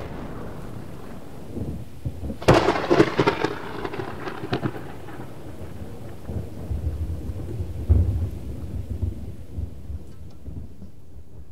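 Thunderstorm sound effect: a steady hiss of rain, with a cluster of sharp thunder cracks about two and a half seconds in and a low rumble of thunder peaking about eight seconds in.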